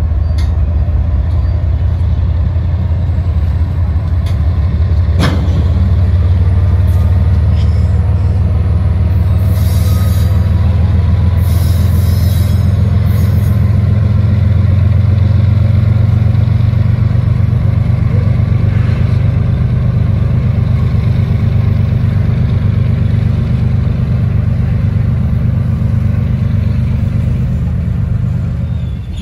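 Union Pacific diesel-hauled freight train passing close by: the steady low rumble of the locomotives and the freight cars rolling over the rails, with one sharp knock about five seconds in.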